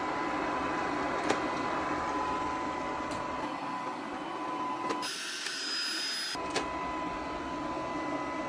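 Tapo RV30 Plus robot vacuum running with a steady mechanical whir and a few light clicks. The whir drops out for about a second midway.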